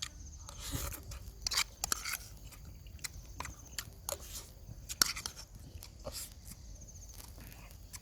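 A person eating: chewing and crunching food, with scattered crackles and sharp clicks, the sharpest about five seconds in.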